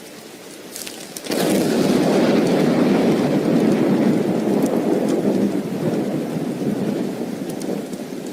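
A thunderclap breaks in suddenly about a second in and rumbles for several seconds, slowly fading, over steady rain.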